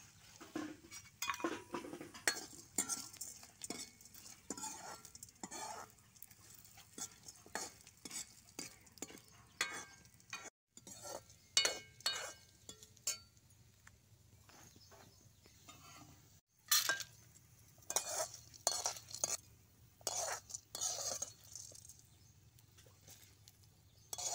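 A steel ladle stirring and scraping chana dal, peanuts and curry leaves frying in a little oil in an aluminium kadai, with irregular metal-on-metal scrapes and clinks and a light sizzle. The sound is broken twice by a brief silence.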